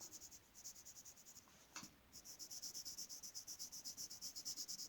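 Faint colouring strokes on paper: a few scattered strokes, a single short tap a little before two seconds in, then a steady run of quick back-and-forth strokes at about five a second.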